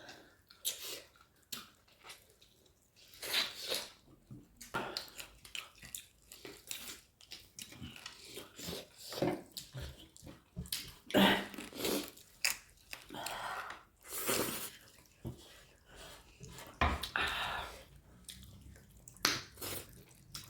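Close-up eating sounds: a person chewing and biting food in irregular bursts.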